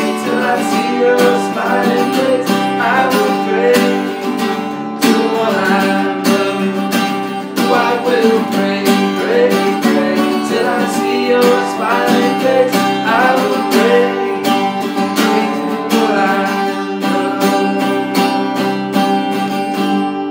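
Acoustic guitar strummed with an acoustic bass guitar, and two men singing a country song over them.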